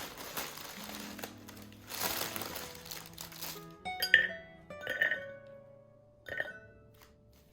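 Soft background music, with three clear glass clinks in the second half, each ringing briefly, after a short hiss.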